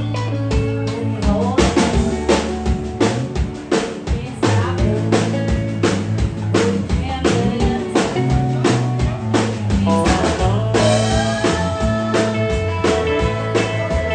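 Live country band playing an instrumental passage: drum kit keeping a steady beat under bass and guitar. A fiddle comes in with long held notes a little past the middle.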